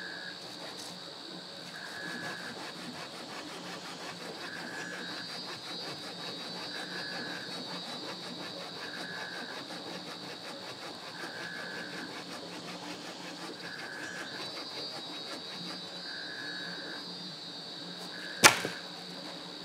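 Rainforest ambience: a steady high insect chorus, with a short call repeated about every two seconds. One sharp knock near the end is the loudest sound.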